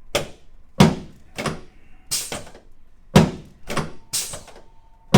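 Chiropractic drop table's pelvic section clunking down under quick hand thrusts: about eight sharp thuds, each under a second apart. They are adjustments for a left sacroiliac joint subluxation.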